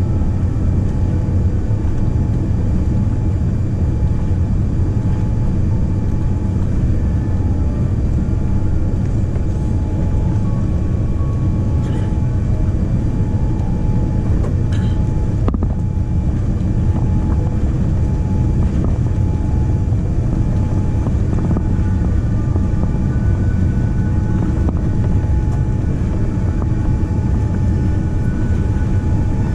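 Steady low rumble inside the cabin of a Boeing 787-10 on final approach: Rolls-Royce Trent 1000 engine and airflow noise, with a faint steady tone running through it.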